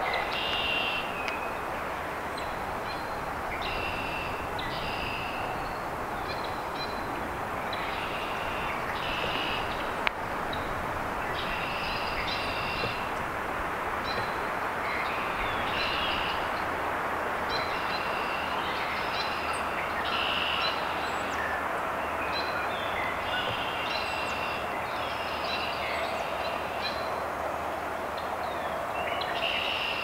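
Outdoor woodland sound: small birds calling and singing over and over above a steady rushing noise, with one sharp knock about ten seconds in.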